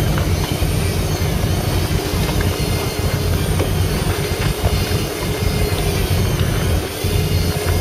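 Fishing boat's engine running steadily under a dense, fluttering low rumble of wind on the microphone.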